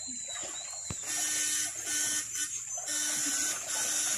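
Homemade backpack electric-fishing shocker buzzing in repeated on-off pulses of about half a second as its current is switched into the water, starting about a second in.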